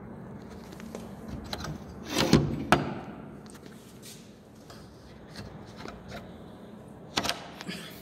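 Sliding bolt and metal door being worked open by hand: two loud metal clunks close together about two seconds in, a few lighter clicks, and another clatter near the end.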